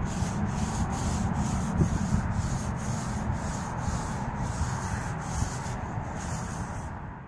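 Paint roller rolling back and forth over a wall, a rasping rub in quick repeated strokes, about two a second, fading out at the end.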